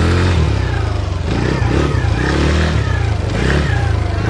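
Small quad bike (ATV) engine running and revving as it is ridden, its pitch rising and falling with the throttle.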